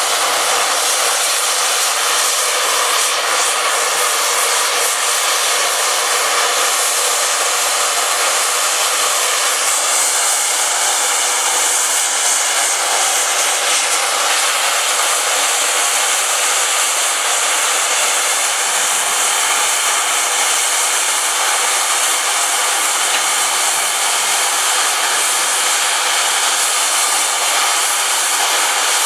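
Steam locomotive's safety valves blowing off: a loud, steady hiss of escaping steam that does not let up, the sign of the boiler at full working pressure.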